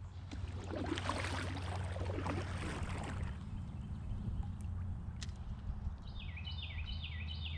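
Water splashing around a fishing kayak, over a steady low rumble. Near the end a bird sings a quick run of about half a dozen falling notes.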